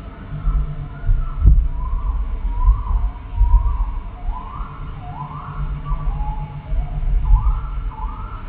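Bird calls played slowed down: a run of repeated arched notes, each sliding up and then down, low and drawn-out like a siren. A strong low throbbing rumble runs underneath.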